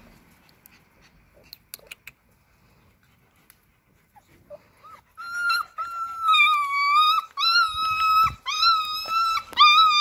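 Six-week-old Alaskan malamute puppy whining during rough play: after a quiet start with a few faint clicks, a run of long, high-pitched whines begins about halfway through and repeats several times.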